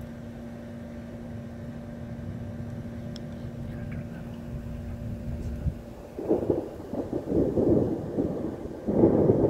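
A steady low hum over background noise, then from about six seconds in loud, irregular rumbling gusts of thunderstorm noise.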